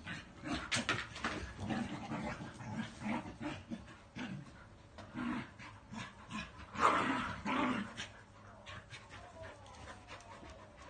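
Two dogs, a husky and a smaller dog, playing rough: short play vocalisations and scuffling, with two louder outbursts about seven seconds in, then quieter.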